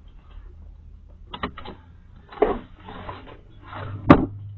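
A few short knocks and clatters of things being handled, with rubbing noise between them, over a steady low hum; the loudest knock comes near the end.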